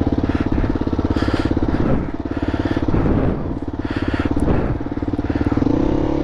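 Single-cylinder four-stroke dirt bike engine running on a trail at low to middling revs, the throttle opening and closing so that the revs rise and fall several times. A few short bursts of hissing noise ride over the engine.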